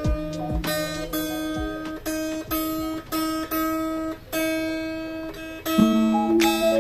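A guitar picked one note at a time in a slow melody, each note ringing on, with a lower note added near the end.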